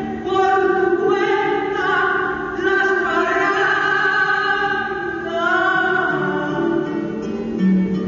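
A song: a solo voice sings slow, long held notes with wavering pitch over the accompaniment, gliding up once about two-thirds of the way through.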